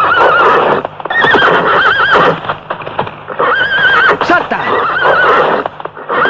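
A horse galloping, with hoofbeats and repeated wavering whinnies about a second apart, as it is ridden at jumps.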